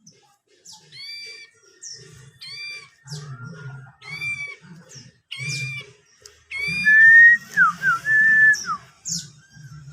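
A caged bird gives short arched chirps about once a second. About seven seconds in, a louder clear whistled phrase is held on one pitch, broken by two quick downward slides.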